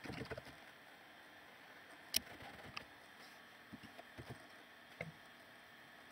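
Faint steady hiss with a handful of small, scattered clicks and knocks, the sharpest about two seconds in.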